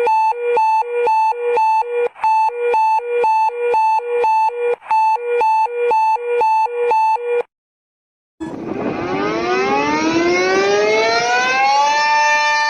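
An alarm beeping, switching rapidly back and forth between a high and a low tone. It cuts off, and after about a second of silence a siren winds up, rising in pitch for several seconds before holding a steady tone.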